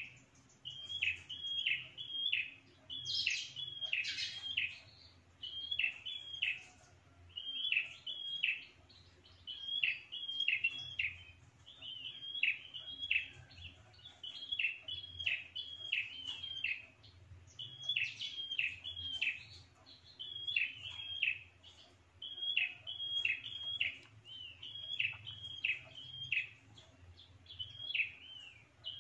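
A prenjak, a small Indonesian warbler-type songbird, calling: short phrases of two to four quick, sharp notes that each drop in pitch, repeated about every one and a half to two seconds. This is the prenjak call used as a lure (pikat) to draw territorial wild birds in.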